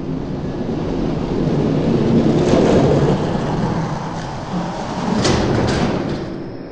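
Diecast toy monster trucks rolling down plastic racing track: a steady rumble of hard wheels on plastic, swelling about two seconds in, with a few sharp clacks near the middle and end.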